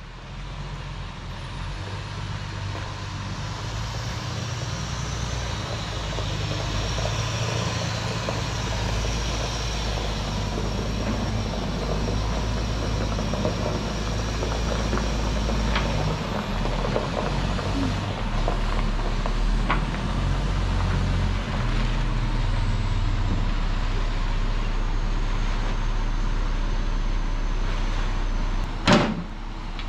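Concrete mixer truck's diesel engine running steadily, with a sharp clank near the end.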